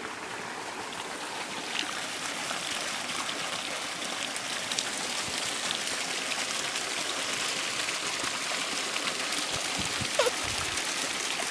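Small, shallow creek rippling and splashing over rocks in a steady rush of water that grows a little louder partway through. Near the end there is one short, falling squeak.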